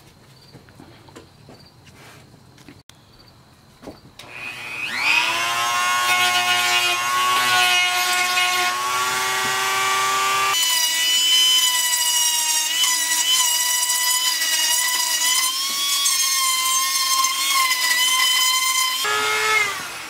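Handheld rotary tool spinning up with a rising whine about four seconds in, then running at a steady high whine; the tone shifts about ten seconds in and the tool winds down near the end. Faint handling clicks come before it starts.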